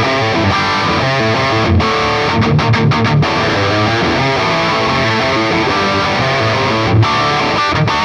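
Charvel Pro-Mod San Dimas Style 1 electric guitar played through a heavily distorted tone: a rock riff with short, choppy stops a few seconds in and a brief break near the end.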